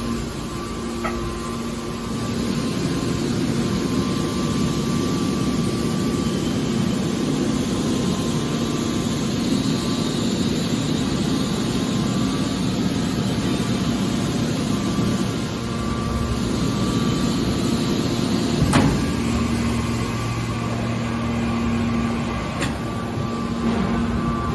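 Aluminum can baler machine running with a steady mechanical hum, with a single sharp knock about three-quarters of the way through.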